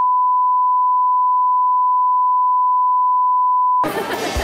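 Steady single-pitch reference test tone that goes with SMPTE colour bars, held at a constant level. Near the end it cuts off suddenly and music comes in.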